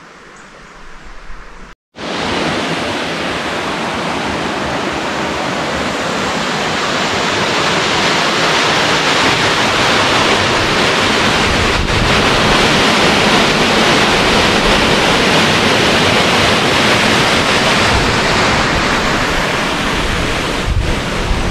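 Loud, steady rush of water, starting abruptly about two seconds in after a brief quiet stretch of outdoor ambience.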